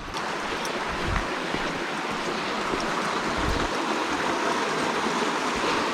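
Creek water rushing steadily, a constant, even wash of noise.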